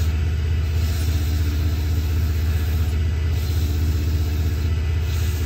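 Small benchtop wood lathe running at a steady speed with a low motor hum, while folded sandpaper pressed against the spinning pen blank adds a soft hiss that swells now and then.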